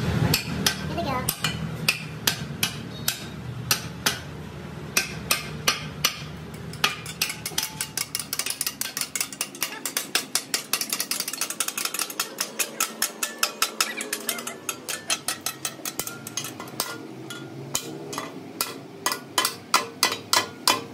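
Hammers striking a hand-held steel punch and chisel against a truck's steel rear axle housing: a long run of sharp metallic clanks, about three to four a second, easing off briefly past the middle and coming quicker near the end as two hammers strike by turns.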